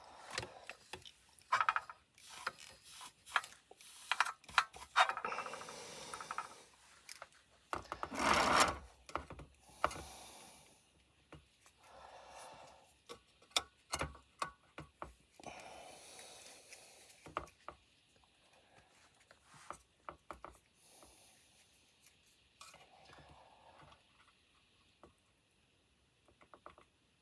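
Small handling noises of hand soldering on a circuit board: scattered clicks and taps, with a few louder rubbing, scraping bursts, the loudest about eight seconds in.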